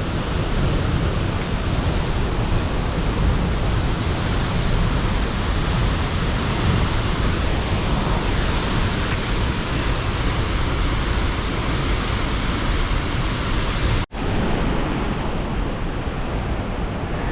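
A large waterfall's falling water rushing steadily, close up, as a dense even roar of noise. It breaks off for an instant about fourteen seconds in.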